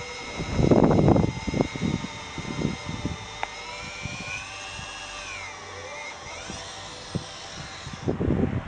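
A motor whining with several pitched tones that dip and then rise again around the middle, with a loud rough burst of noise about a second in and a few shorter knocks after it.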